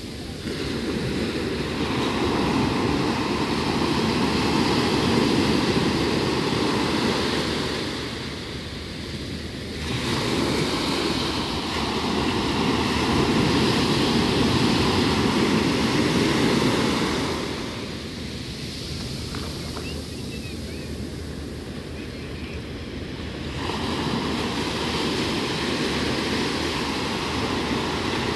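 Sea surf breaking on a sandy shore and washing up the beach, the rush swelling and ebbing in long surges several seconds apart.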